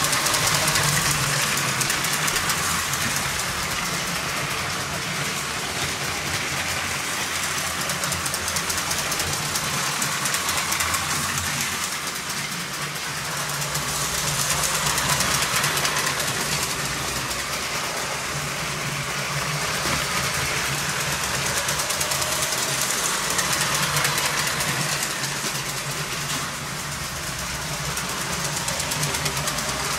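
LEGO 12-volt electric train motors running and plastic wheels rolling over the track joints, a steady whirring rattle that swells and fades as the trains pass.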